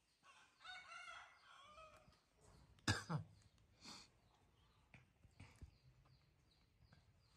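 A rooster crowing in the background, one drawn-out crow about half a second to two seconds in. About three seconds in comes a brief, sharper sound that drops in pitch, the loudest moment, followed by a few faint ticks.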